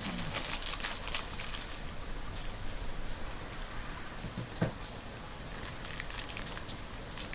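Rain falling, heard through an open window as a steady hiss with scattered faint ticks. A short soft knock comes about four and a half seconds in.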